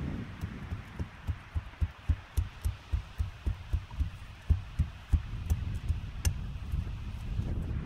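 Steel bar driven repeatedly into the dirt beside a wooden post, tamping the backfill around it: short dull thuds, about three a second, with a few faint clicks.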